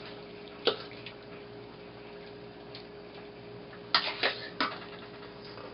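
Metal spoon clinking against a stainless steel bowl while raw chicken pieces are scooped out: one clink about a second in, then three in quick succession near the end, over a faint steady hum.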